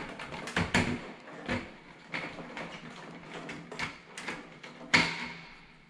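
Handling noises: a string of separate clicks, taps and knocks, with a louder knock about five seconds in that rings out briefly.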